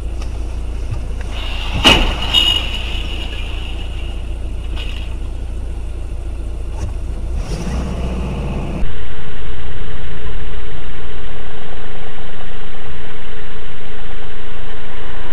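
Vehicle engine and road noise as picked up by a dashcam: a steady low rumble, with a sharp knock and a brief high squeal about two seconds in. About nine seconds in it cuts abruptly to a much louder, steady rumble from another recording.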